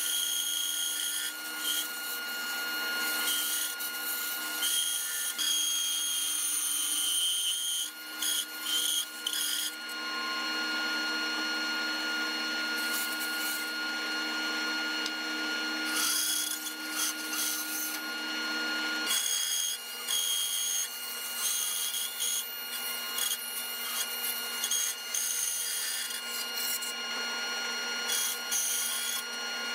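Bandsaw running steadily while its blade cuts through a thick walnut gunstock blank. The hiss of the cut rises, falls and briefly breaks off as the board is fed and steered along the outline.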